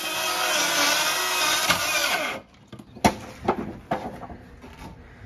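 Background music for about the first two seconds, then cut off. Weathered wooden fence boards are pried and pulled loose from a shed wall, with a few sharp cracks and knocks of wood.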